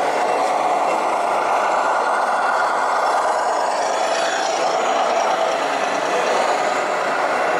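Steady, unchanging diesel truck engine sound from a radio-controlled model truck's sound module, played through a small speaker with little bass.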